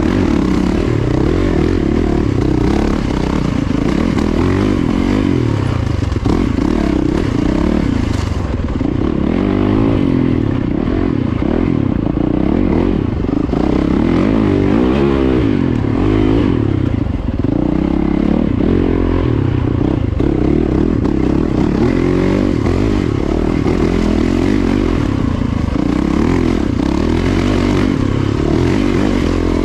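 Yamaha dirt bike's engine running hard while being ridden, heard up close from the bike itself, its revs rising and falling again and again with the throttle.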